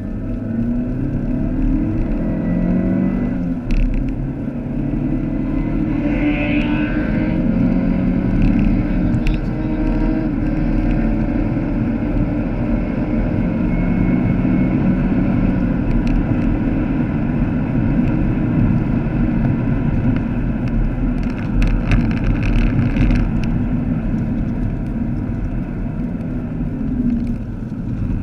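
Vauxhall Astra VXR's turbocharged 2.0-litre four-cylinder engine, heard from inside the cabin with heavy road and tyre noise as the car is driven hard on a race track. The engine note rises in the first few seconds, then holds a steady drone at speed, with a few brief sharp knocks about three-quarters of the way through.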